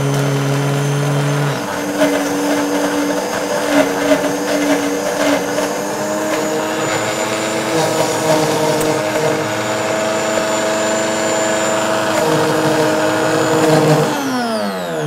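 Optimum high-speed blender motor running on a thick walnut and almond-milk mix, turned up from the low setting toward high: its pitch steps up about a second and a half in and then climbs slowly. Near the end it is switched off and the motor winds down with a falling whine.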